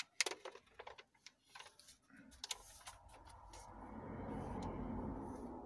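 Faint scattered clicks and ticks. About three seconds in, a low rushing noise swells and then fades near the end.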